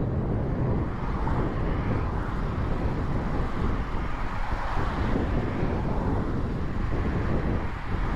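Road traffic: cars passing one after another close by a stopped motorcycle, with one swelling past about four to five seconds in, over the steady low rumble of the BMW R1150RT's boxer twin idling.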